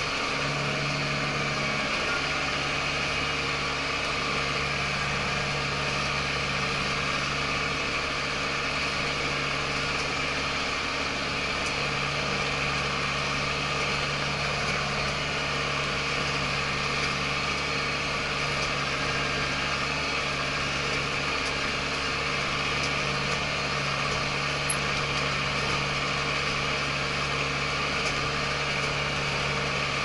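Diesel engine of an ISEKI TJV tractor running steadily under load as it tills with a rear rotary, heard from inside the closed cab as a constant hum.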